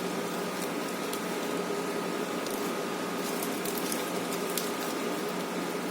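Steady hiss of rain, with a faint steady hum and a few faint ticks scattered through.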